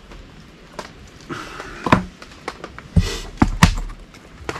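Handling a plastic rig box: small clicks and taps, then a cluster of louder knocks and clacks about three seconds in as its lid is lifted off.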